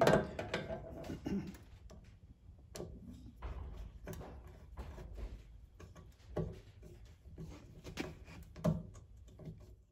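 Oliver 550 tractor hood being set down and shifted into place on the tractor by hand, giving a scattering of light knocks and scuffs, the loudest about six and a half and near nine seconds in.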